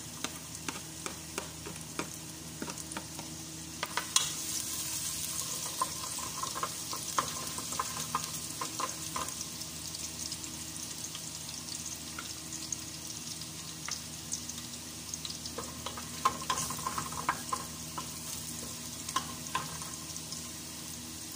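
Chopped garlic sizzling as it fries in hot oil in a metal pot, stirred with a wooden spoon that taps and scrapes against the pot. The sizzle grows louder about four seconds in.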